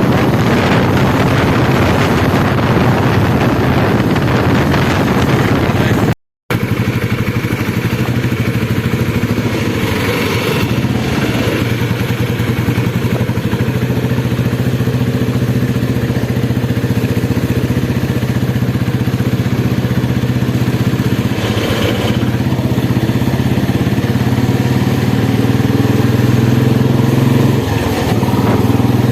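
Royal Enfield Bullet's single-cylinder four-stroke engine running steadily, its exhaust beat even and unchanging. The sound drops out for a split second about six seconds in.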